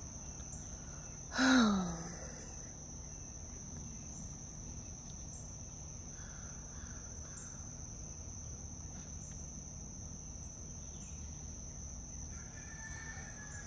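Crickets trilling steadily in one constant high-pitched tone. About a second and a half in, a brief low voice sound falls in pitch.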